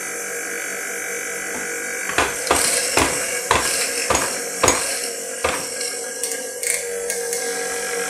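Sharp knocks and taps, about two a second, starting about two seconds in, over a steady hum: the Latina 600N electric coffee grinder being knocked clean of leftover grounds.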